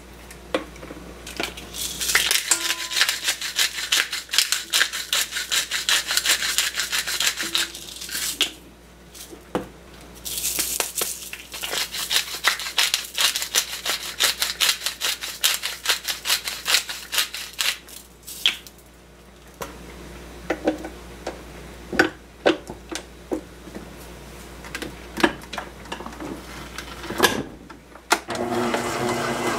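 Hands kneading and mixing ground-meat hamburger mixture in a bowl: rapid, wet rubbing and squishing strokes in two long spells, then scattered lighter handling clicks.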